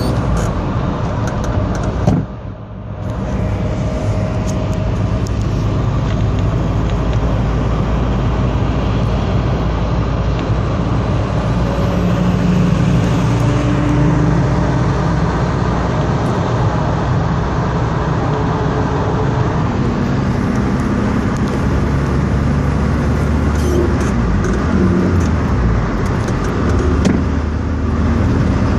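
Steady road and engine noise inside a vehicle cabin at motorway speed, with a heavy truck running close alongside. The noise drops away sharply for a moment about two seconds in.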